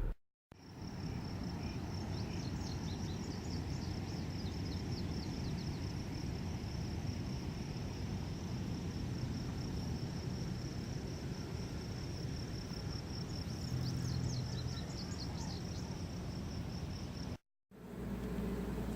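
Insects trilling in one steady high drone, with a few short falling chirps about two to four seconds in and again near the end, over a low rumbling background noise.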